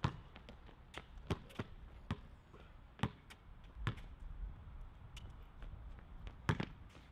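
Basketball being dribbled on a hard outdoor court: a run of irregularly spaced bounces, with a louder pair of bounces near the end.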